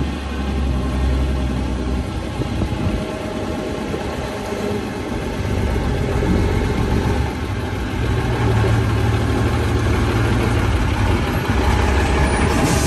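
Diesel engine of a Foden six-wheel-drive army lorry driving up and pulling in close, its note rising and falling with the throttle and growing louder as it nears.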